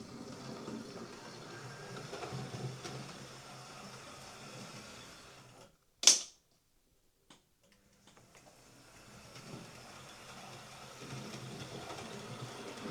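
Hornby OO-gauge Class A1 model steam locomotive running on DC power, its small electric motor and gears giving a steady low whir now that the motor is shimmed back into mesh with the gears. The whir stops a little over five seconds in, a single sharp click follows, and then the whir builds up again gradually.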